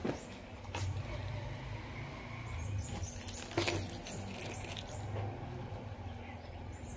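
Quiet room sound with a low steady hum and a few faint clicks and rustles of handmade beaded earrings being handled, the clearest click about three and a half seconds in.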